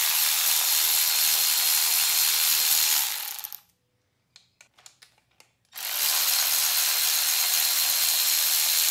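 Cordless electric ratchet running under load as it backs out bolts. It runs steadily for about three and a half seconds, stops for about two seconds with a few small clicks, then runs again to the end.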